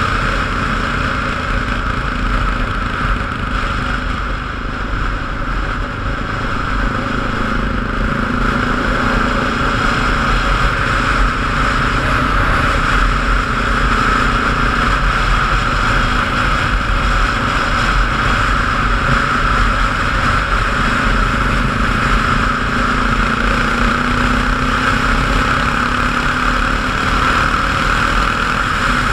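A vehicle's engine running steadily under a constant loud rushing noise, its pitch drifting slightly in the second half.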